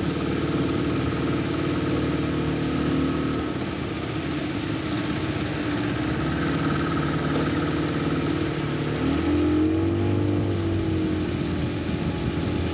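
Small river boat's outboard motor running steadily under way, with a brief rise and fall in pitch about ten seconds in.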